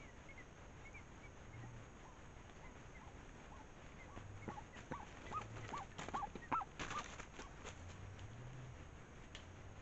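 Faint calls of foraging guans: a run of about eight short notes in quick succession midway through, with clicks and rustles in dry leaf litter. A fainter high chirping sounds in the background early on.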